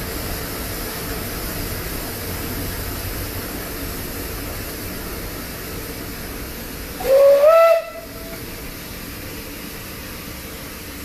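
Narrow-gauge steam locomotive's whistle sounding one blast of about a second, sliding up in pitch as it opens, over the steady running rumble of the train.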